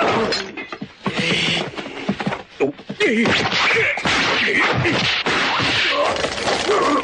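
Cartoon fight sound effects: a quick series of punch and kick impacts, with grunts and cries of effort between the blows.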